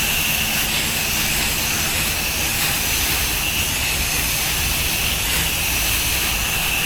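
Pressure washer running with a steady hiss of water spraying from the wand.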